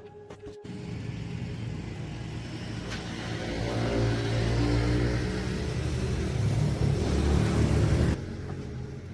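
A machine running: a loud low rumble with a hiss over it, growing louder, then cutting off abruptly about eight seconds in.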